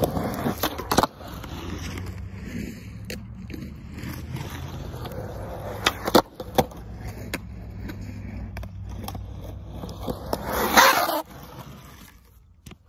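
Skateboard on asphalt: a steady low rumble of rolling wheels, with sharp clacks of the tail popping and the board landing, a cluster of them about six seconds in. Near the end a louder rush of rolling noise close by stops suddenly.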